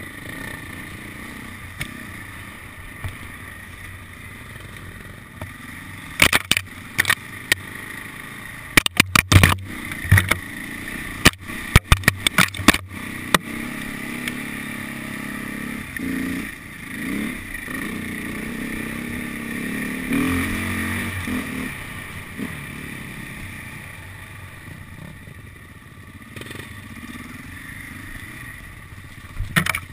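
Enduro motorcycle engine running and revving on a rough dirt trail, with a cluster of sharp knocks and clatters from about six to thirteen seconds in. The engine is loudest about twenty seconds in.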